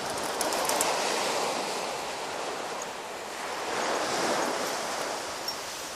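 Sea surf washing on the shore, an even hiss that swells in the first second or so and again about four seconds in, with wind on the microphone.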